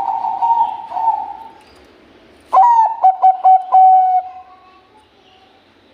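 Perkutut Bangkok zebra dove cooing: one phrase trails off, then after a short pause comes a loud song of four short clipped notes ending in a longer held coo.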